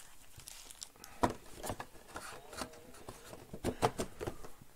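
Hands handling cardboard trading-card hobby boxes: scattered light taps and knocks of the boxes with soft rustling. The sharpest tap comes about a second in, and several come close together near the end.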